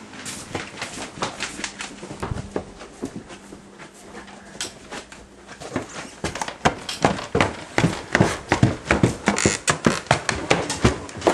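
Irregular footsteps and knocks of people walking indoors past a staircase, with handheld camcorder handling noise. The steps come faster from about halfway in.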